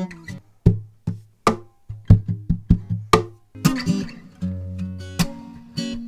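Acoustic guitar played fingerstyle, close-miked by a pair of pencil condenser microphones: a run of short, sharply plucked notes that die away quickly, then longer ringing notes and chords in the second half.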